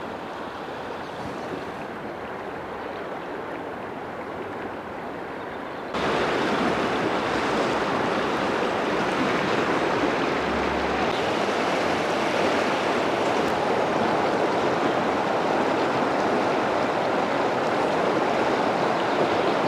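Vääksy river water rushing steadily. About six seconds in it becomes suddenly louder and stays that way.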